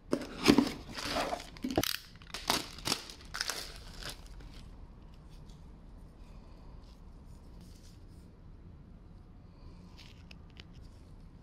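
Cardboard box and paper wrapping being opened and crinkled as a new fuel filter is unpacked: a run of loud rustling, tearing bursts over the first four seconds, then only faint handling ticks.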